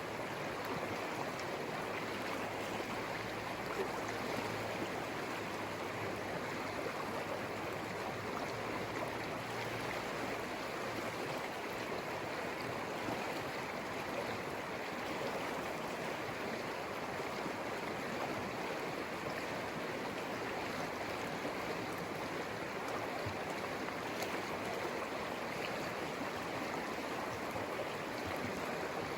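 The Conejos River flowing: a steady, even rush of moving water.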